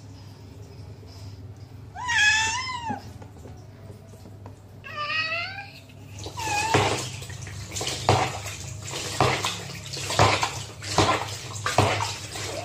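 A wet cat meowing loudly, two drawn-out meows about two and five seconds in and a shorter one after, while it is bathed for fleas. Then a rubber bath brush scrubbing its wet fur in the tub water, a splashy swish about once a second.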